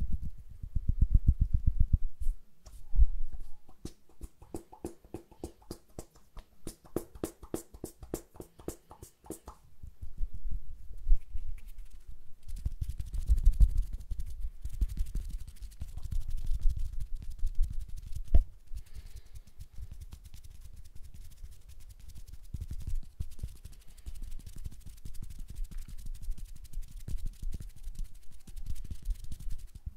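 ASMR hand sounds made right at a stereo microphone. First comes a fast run of soft clicks for several seconds. Then, from about twelve seconds in, hands rub and flutter close to the microphone: a dense rustle with a low rumble.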